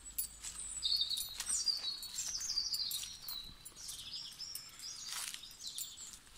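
Several songbirds singing together in the trees: an overlapping mix of high chirps, quick trills and gliding whistled notes, busiest in the first half.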